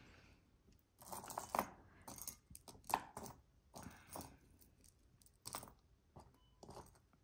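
Small pieces of jewelry clinking and clattering against each other as they are picked through by hand: a string of light, irregular clicks.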